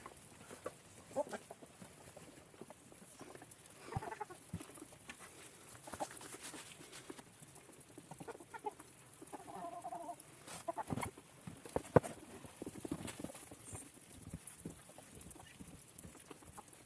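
Chickens clucking now and then over scattered knocks and clicks; a single sharp knock about two-thirds of the way through is the loudest sound.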